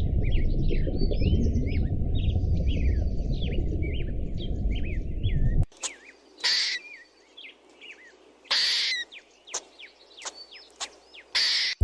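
Small birds chirping, a rapid run of short, quick-falling calls, over a steady low rumble that cuts off abruptly about halfway through. After that the chirping goes on more quietly, broken by three short, harsh noisy bursts.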